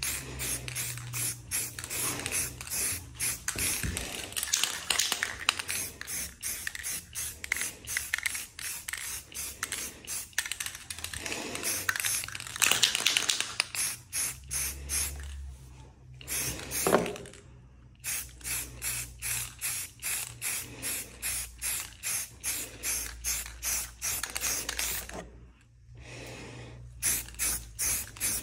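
An aerosol spray can of primer being shaken hard, its mixing ball rattling about three times a second, with short hissing bursts of spray in between.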